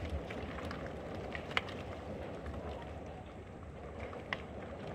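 Small hail and rain falling: a steady hiss with sparse sharp ticks of pellets striking, the two clearest about a second and a half in and near the end.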